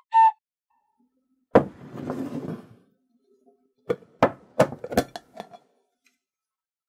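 A brief pitched chime at the very start, then a knock with a short scrape against a wooden tabletop, then a quick run of about six sharp plastic clicks as the snap-on lid is pried off a glass food container.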